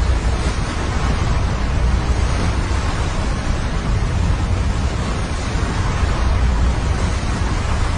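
Snowstorm wind blowing hard and steadily, with a deep, uneven rumble of gusts buffeting the microphone.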